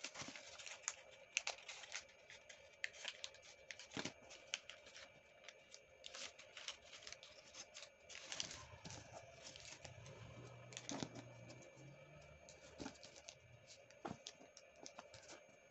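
A sheet of origami paper rustling and crinkling as it is folded and creased by hand, with irregular small crackles and clicks.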